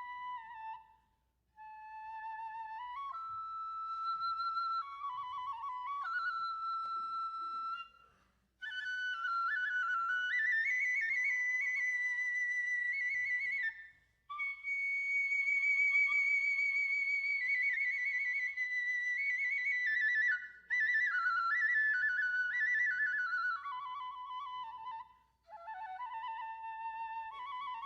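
Solo Japanese transverse bamboo kagura flute playing a slow, ornamented melody in long phrases with short breath pauses between them. The line climbs to a high held note about halfway through and sinks back to its low starting note near the end.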